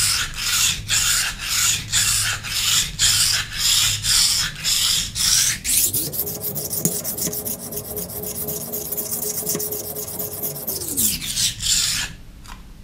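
Kitchen knife with a clip-on angle guide being stroked back and forth across a wet coarse whetstone: rhythmic scraping, about two to three strokes a second. Around the middle the scraping turns steadier and a low hum rises in, then falls away before the sound drops off near the end.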